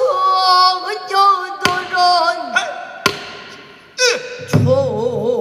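A woman singing pansori solo into a microphone, holding long notes, then a phrase with wide, wavering vibrato about four seconds in. A few sharp knocks fall between phrases.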